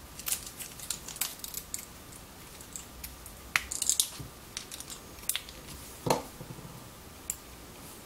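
Small irregular clicks, crackles and scrapes of a screwdriver and fingers handling the plastic and metal parts of a partly dismantled SICK EFS50 rotary encoder, with a cluster of clicks a little past the middle and a louder knock about six seconds in.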